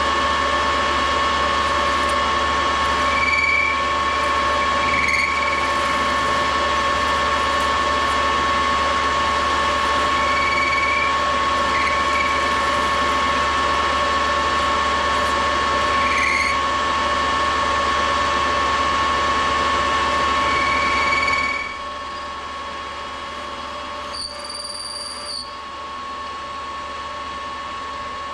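Metal lathe running and turning down an aluminium bar, a steady machine whine with short squeals every few seconds. About three-quarters through, the sound drops to a quieter running hum.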